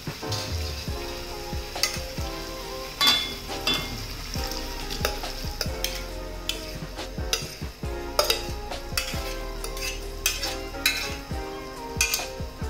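Diced raw mango pieces dropped into a pan of hot chilli masala and worked in with a spatula: a steady sizzle with scattered knocks and scrapes from the pieces and the spatula on the pan.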